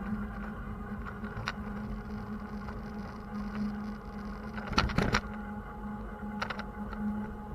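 City traffic heard while riding a bicycle: a steady low hum of vehicles with a few short rattling clatters, the loudest bunch about five seconds in.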